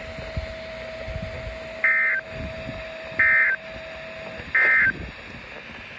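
Three short bursts of SAME digital end-of-message data tones on a NOAA Weather Radio broadcast, evenly spaced about a second and a half apart, heard through a weather alert radio's speaker; they mark the end of the flash flood warning message.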